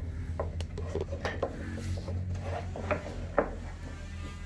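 Light knocks, taps and scrapes of plywood panels being handled and fitted inside a wooden speaker cabinet, with the sharpest knock about three and a half seconds in, over a steady low hum.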